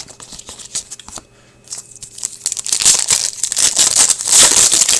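Trading card pack's foil wrapper being torn open and crinkled in the hands, a dense crackling rustle that builds from about two seconds in and is loudest near the end, after a few light clicks of cards being handled.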